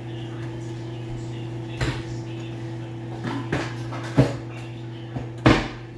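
Several sharp knocks and bangs of kitchen handling, such as cupboard doors and things being moved, about five of them, the loudest two near the end, over a steady low hum.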